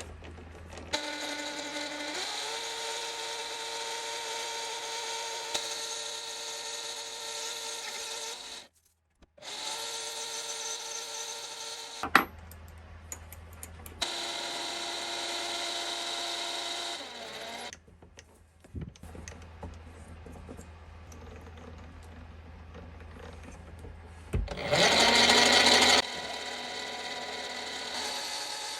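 Small electric power-tool motor whining as it runs in several stretches, switched off and on between them. It speeds up about two seconds in, and one short stretch near the end is louder and harsher.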